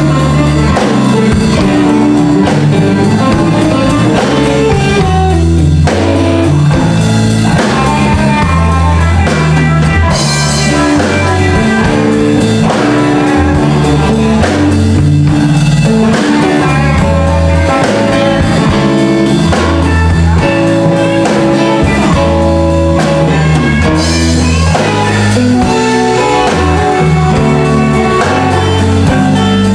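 A live blues band plays: electric bass walking through the low notes, two electric guitars and a drum kit. The cymbals ring brighter through the middle stretch.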